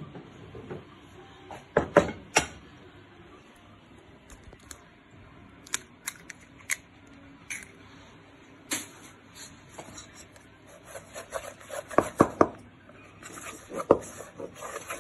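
Wooden chopsticks stirring flour and egg in a bowl, clicking against the bowl in quick, irregular taps that grow dense from about eleven seconds in. A few single knocks earlier, from the bowls being handled.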